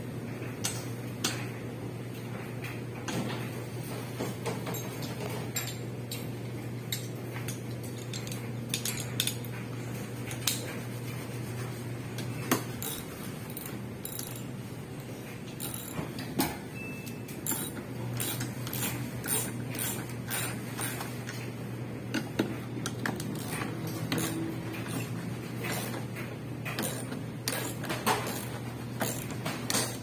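Irregular metallic clinks and taps of tools and parts being handled while a front-loading washing machine is taken apart, over a steady low hum.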